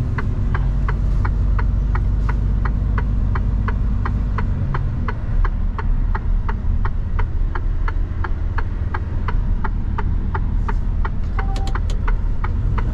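Steady low drone of a Mercedes-Benz Actros truck's engine heard inside the cab, with an even ticking about three times a second from the turn-signal indicator. A short beep sounds near the end.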